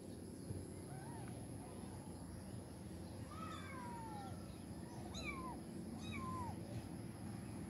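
Kittens mewing: about four or five thin, faint mews, each falling in pitch, the longest about three seconds in.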